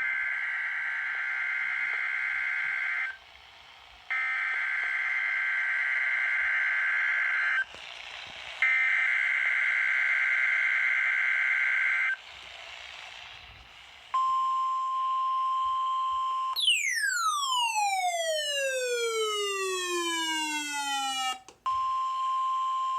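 NOAA Weather Radio weekly test signal. Three loud, harsh digital SAME header bursts come first, each about three and a half seconds long, then the steady 1050 Hz warning alarm tone. The alarm tone is broken by a sweeping tone that falls in pitch for about five seconds, and then it comes back.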